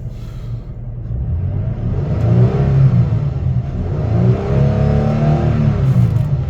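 2023 Toyota Tacoma TRD Off-Road's 3.5-litre V6 engine idling, then revved twice, the pitch rising and falling back each time; it revs happily.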